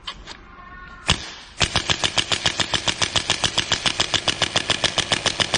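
Electric chiropractic impulse adjusting gun firing: one sharp strike about a second in, then a rapid, even train of sharp clicking impulses, about seven a second.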